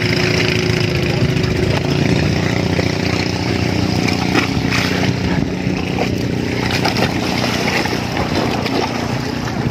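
Small boat engine running steadily, a low even drone over a hiss of wind and water.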